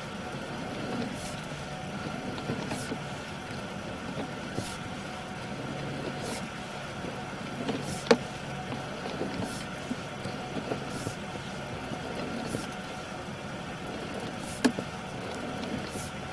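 Sewer inspection camera push cable being worked through the line: a faint swish about every second and a half over a steady low mechanical hum, with two sharp clicks, one about halfway through and one near the end.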